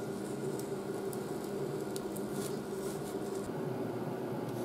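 Electric hot knife melting through styrofoam: a faint, irregular crackle and sizzle as the hot tip sinks into the foam, over a steady low hum in the room.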